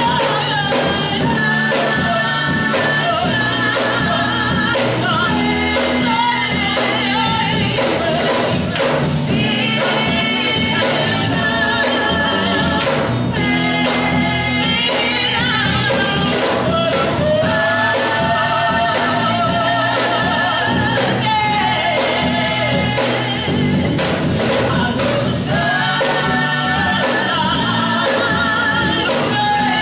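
Gospel song: voices singing with vibrato over band accompaniment.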